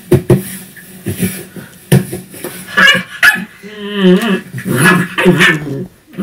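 Recorded dog barks and yips played through a computer's speakers, one call after another, with a drawn-out call of wavering pitch about four seconds in.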